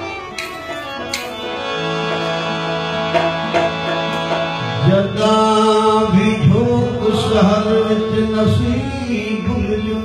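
Live Sindhi Sufi kalam. Stringed instruments play over a held drone note, then a man's voice comes in singing about five seconds in, with wavering, ornamented pitch.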